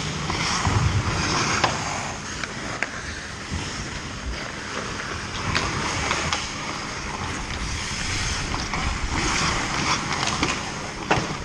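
Ice hockey play: a steady scraping hiss of skate blades on the ice, with a few sharp clacks of sticks and puck now and then.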